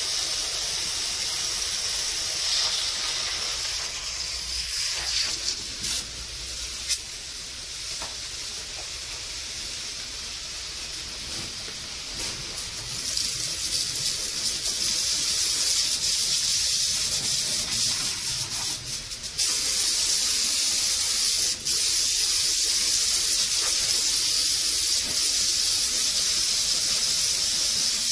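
Water jet from a hose spraying onto the metal tracks and panels of a combine harvester, a steady hiss that shifts in level as the jet is moved. It is quieter for a stretch early on and louder from about halfway through.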